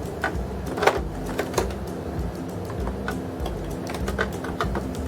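Hard plastic vacuum parts clicking and knocking at irregular moments as they are handled and fitted together.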